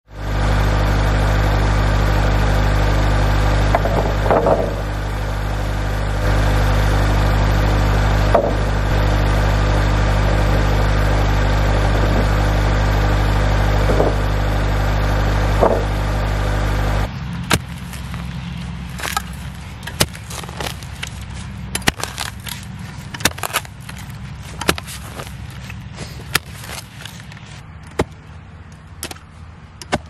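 Kubota compact tractor's diesel engine idling steadily, with a few knocks over it. It cuts off suddenly about 17 seconds in, and irregular knocks and thuds of manual post-hole digging follow.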